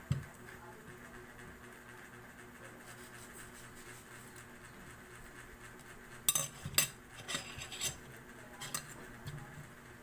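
A spoon clinking and scraping against a plate, with a single knock at the start and a few quick clusters of sharp clicks from about six to nine seconds in, over a faint steady hum.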